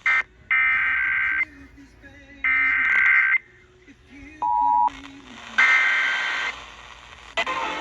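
Emergency Alert System SAME header data bursts: harsh digital warbling tones in three bursts of about a second each, with pauses between. About halfway through there is a short beep of about half a second.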